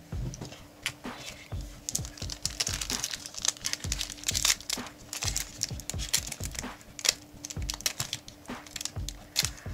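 Plastic wrapper of a trading-card pack being crinkled and torn open, a dense run of crackles and rustles.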